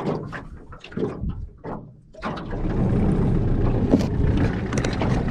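A few knocks and handling clicks, then, a little over two seconds in, a small boat's outboard motor starts running steadily.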